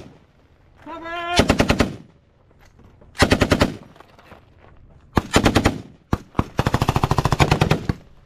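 M249 light machine gun firing blanks in short automatic bursts, about fourteen rounds a second: three half-second bursts a couple of seconds apart, then a couple of single shots and a longer burst of about a second and a half near the end.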